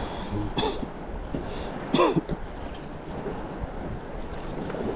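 Steady wind noise on the microphone, with a person clearing their throat about two seconds in and a shorter, similar sound just after the start.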